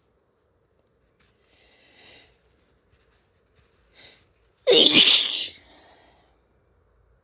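A person sneezing once, loudly and suddenly, about two-thirds of the way in, after two short, quieter breaths.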